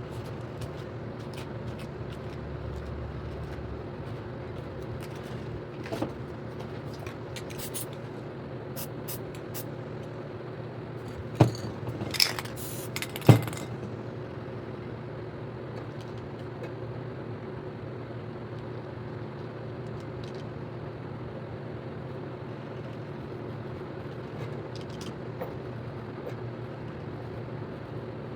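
A steady hum with a couple of low tones, broken by a few sharp knocks and clicks about halfway through, the loudest a little after the middle.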